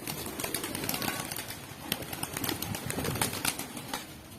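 A flock of pigeons at feeding, wings flapping and fluttering among many quick taps and clicks, with a faint call or two.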